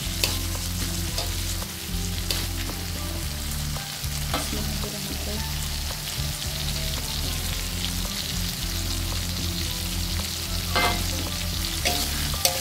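Egg and tomato stir-fry sizzling steadily in a metal wok, with a few sharp clinks of a metal spatula and spoon against the pan. A low steady hum runs underneath.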